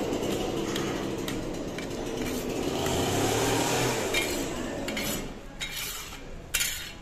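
Metal perforated skimmer stirring and scraping cooked rice in a cast-iron kazan, then knocking and clinking against the pot several times in the last couple of seconds, one knock louder than the rest near the end.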